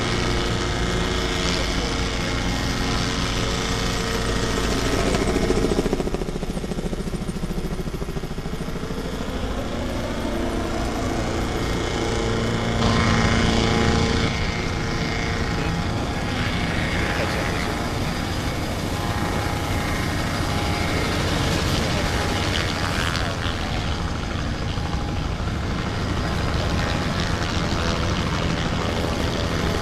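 Boat engines and a helicopter running steadily on the water, with one engine's pitch falling and then rising again about six to ten seconds in.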